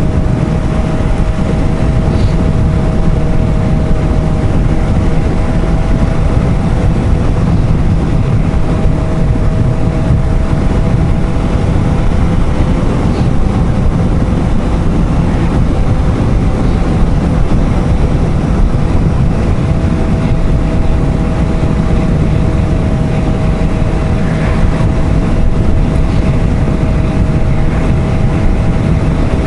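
Suzuki GSR750 inline-four motorcycle engine at a steady cruise, its revs held nearly constant, under a heavy, even rush of wind and road noise.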